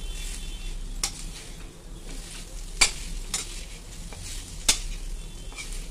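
Perforated metal spatula stirring and scraping khoya (milk solids) in a metal kadhai, with four sharp clinks of spatula on pan, over a faint sizzle as the khoya roasts on low heat.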